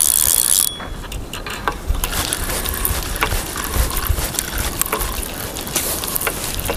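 A fishing reel being cranked to wind in line on a hooked fish, its gears ticking and clicking irregularly, with wind rumbling on the microphone. A loud hiss fills the first moment.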